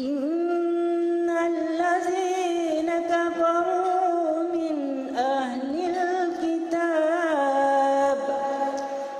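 A woman's voice reciting the Quran in slow, melodic tarannum style, holding long drawn-out notes with wavering ornaments and taking a short breath about five seconds in.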